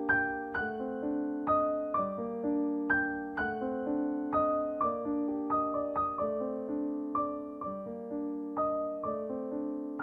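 Background piano music: a slow run of single struck notes, about two or three a second, each ringing and fading.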